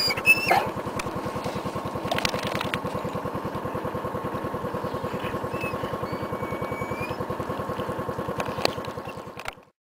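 A small engine running steadily with a rapid, even pulse, which stops abruptly near the end.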